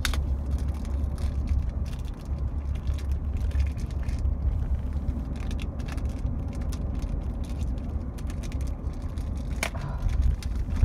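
Steady low rumble of a car's interior, with scattered clicks and rustles from hands unpacking and turning a puzzle cube.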